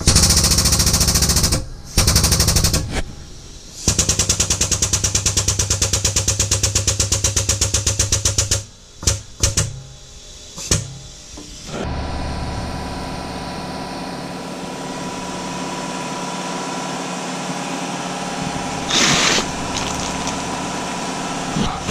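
Air tool rattling in fast, even runs of blows, about seven a second, as a perished rubber bushing is worked out of a Renault 4 suspension arm. From about twelve seconds in a steady machine hum takes over, with a short loud rush of noise near the end.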